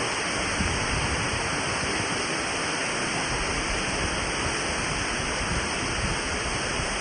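A waterfall's water falling: a steady, even rush of noise that holds unchanged throughout.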